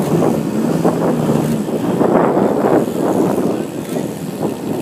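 Jeep engine running as the vehicle pushes through water up to its roof, with wind noise on the microphone and voices.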